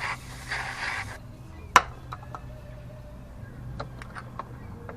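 A hissing spray that cuts off about a second in, followed by a single sharp click and a few faint ticks over a low steady hum.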